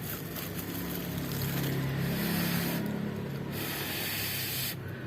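A passing motor vehicle: a low engine hum swells to its loudest around two to three seconds in and fades, over a steady hiss.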